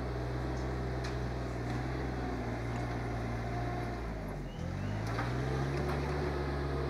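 Rural King RK24 subcompact tractor's diesel engine running steadily under load as the loader works a log pile. About four and a half seconds in, its pitch dips briefly and then climbs back up.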